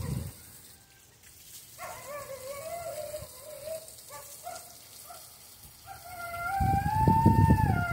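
A dog whining in wavering, drawn-out cries that build near the end into one long, louder howl, with a low rumble beneath it. These are the pitiful cries of a neighbor's dog that the uploader says is left without attention.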